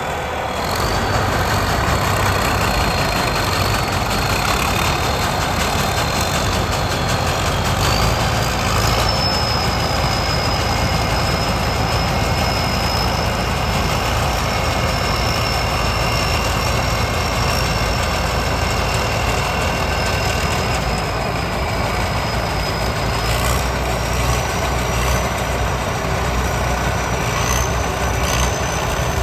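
Combine harvester cutting rice, its diesel engine running steadily under load, with a thin high mechanical whine above the engine.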